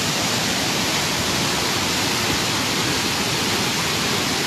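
A river in flood, its muddy water rushing over fields and banks in a steady, loud rush of noise.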